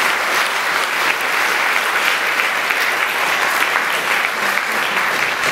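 Audience applauding steadily: a dense clatter of many hands clapping.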